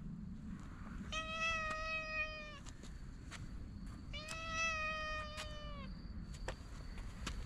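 Brown tabby cat meowing twice, two long level-pitched calls of about a second and a half each, dipping slightly at the end.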